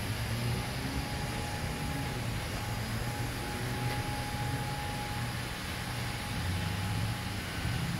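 A steady low hum with an even hiss over it, and a faint thin whine that comes and goes.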